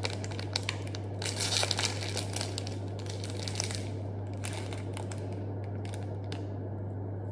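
Plastic snack wrapper crinkling as it is peeled open around a pastry, thickest about a second and a half in and dying away after about four seconds. A steady low hum runs underneath.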